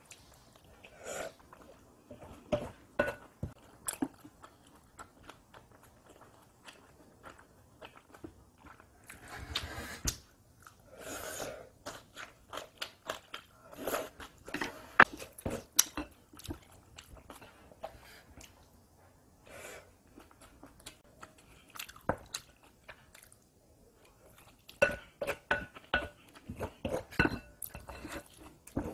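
A person chewing and biting mouthfuls of rice mixed with seasoned vegetables, with crunchy bites. A wooden spoon scrapes and knocks against a glass bowl as she stirs and scoops between bites, giving sharp taps throughout.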